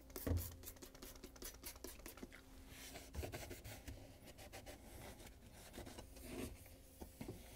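Cloth wiping and scrubbing a wet stainless steel dishwasher door liner: faint, rapid rubbing made of many short strokes, with a soft bump just after the start.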